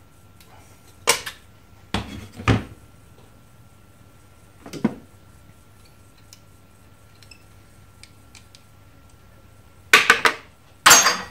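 Sharp clicks and knocks of pliers and a circuit board being handled on a workbench while components are cut and pried off a set-top box board: a click about a second in, two knocks around two seconds, another near five seconds, and a louder cluster of snaps near the end.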